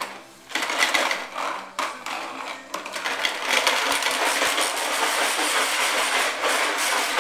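Toy push lawn mower rattling and clicking steadily as it is pushed across a tile floor, starting about half a second in.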